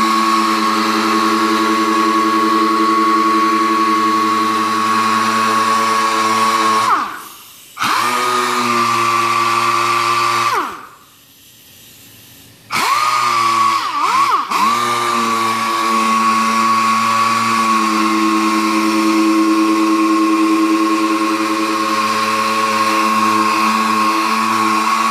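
Air-powered random orbital sander running with a steady high whine while sanding a sealer coat on wood. It is released twice, falling in pitch as it spins down: briefly about seven seconds in, and for about two seconds just after ten seconds in. Each time it spins back up to full speed.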